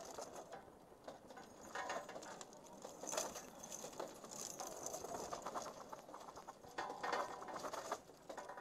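Irregular metallic clicks and rattles as a belt of .50-calibre ammunition is handled and laid into a heavy machine gun's feed tray during a reload, with louder knocks about three and seven seconds in.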